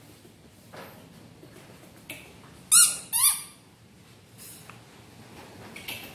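Yellow rubber duck squeaky toy squeezed, giving two short squeaks about half a second apart near the middle, each rising then falling in pitch.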